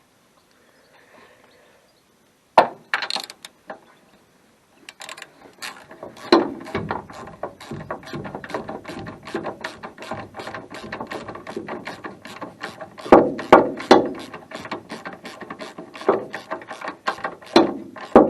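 Hand ratchet wrench clicking quickly as a nut is turned, a few clicks a second, broken by several louder clacks.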